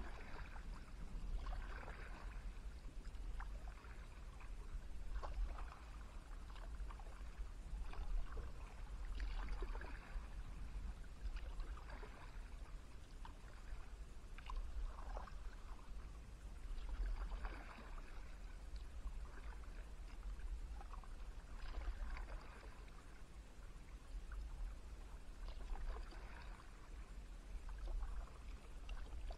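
Kayak paddle strokes in calm river water: the blade dipping in and water splashing and dripping off it, about one stroke every two seconds. A steady low rumble sits underneath.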